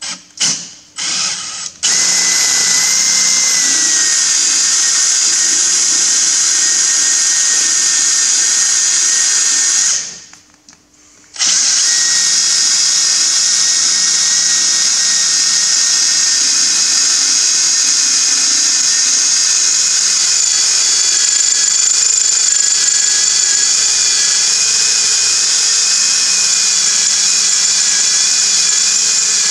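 Cordless drill boring a twist bit down into the steel bearing locking collar of a Massey Ferguson 135 rear axle, to weaken the collar so it can be split off with a chisel. It starts with a few short bursts of the trigger, runs steadily, stops for about a second and a half roughly ten seconds in, then runs steadily again.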